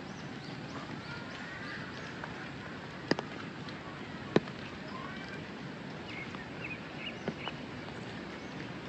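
Birds chirping over a steady outdoor background hiss, with a few sharp clicks or knocks, the loudest about four and a half seconds in.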